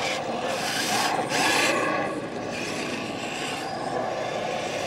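Small electric motor and gears of a scale RC crawler whirring and grinding, the pitch wavering up and down with the throttle, with a rasping scrape of tyres or grit around a second in.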